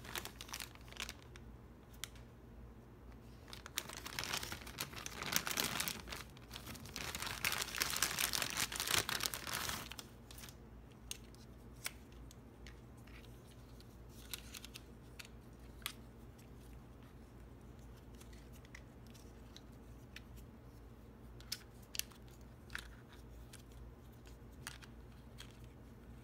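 Thin clear plastic toy bag crinkling and tearing as it is opened by hand, loudest for several seconds in the first half. Afterwards come scattered small clicks and rustles as the hard plastic Smurfette figure and its wing pieces are handled and fitted together.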